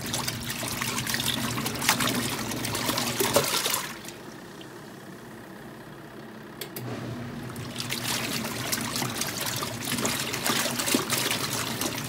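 Zeny twin-tub portable washer's wash tub agitating a load: water and clothes sloshing over a steady motor hum for about four seconds, then stopping for about three seconds, then starting again.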